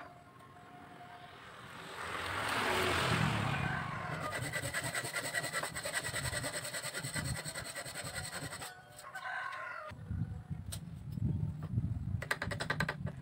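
Hand saw cutting through a thin bamboo strip held in a bench vise: a continuous run of quick rasping strokes that stops about nine seconds in.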